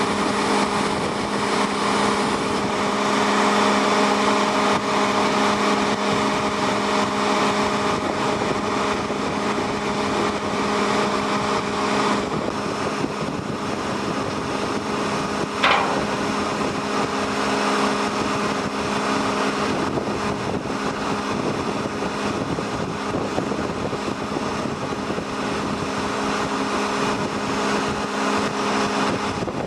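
An engine running steadily with a constant droning hum, with one brief sharp squeal about halfway through.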